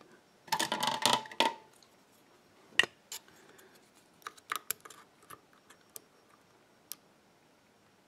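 Metal lock-picking tools, a tension wrench and a thin steel pick, clicking and rattling against a six-pin WILKA euro cylinder. A quick cluster of small metallic clicks and rattles comes in the first second and a half, then single sharp clicks follow every second or so as the pick goes into the keyway and works the pins.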